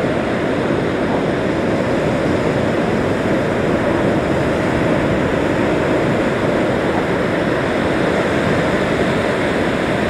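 Rough-sea surf breaking continuously, a steady rushing noise of waves.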